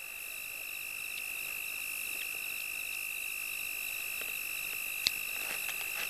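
Night chorus of insects, a steady high-pitched trill with faster pulsing chirps above it, swelling a little at the start. A single sharp click about five seconds in.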